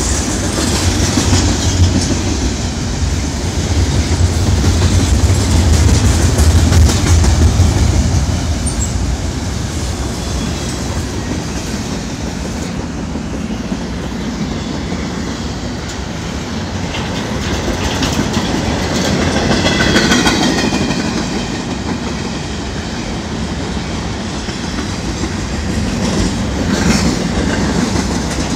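BNSF freight train cars rolling past close by: a steady rumble and clatter of wheels on the rails, heaviest during the first several seconds. Thin high wheel squeals rise and fall about two-thirds of the way through and again near the end.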